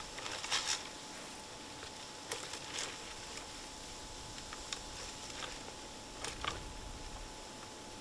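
Faint, scattered crackles and rustles of dry grass and twigs as a deer steps and browses in brush, a handful of short bursts over a steady low hiss.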